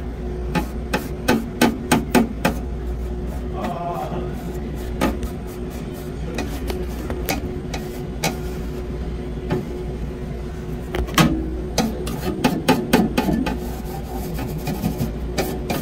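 Refrigeration condensing unit humming steadily while a hand taps and handles the condenser fan motor and its metal grille, making irregular sharp clicks and knocks. The fan motor is overheating.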